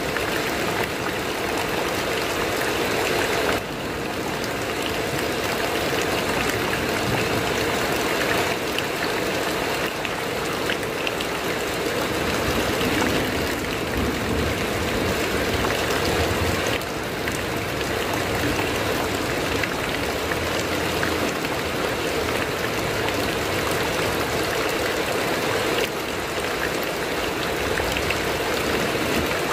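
Heavy rain drumming steadily on a corrugated metal roof, a dense even patter with no thunder.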